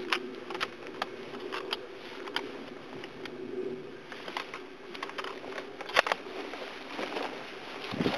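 Handheld camcorder handling noise: scattered sharp clicks and crackles as it is moved through dry scrub, over a faint steady low hum. The loudest click comes about six seconds in.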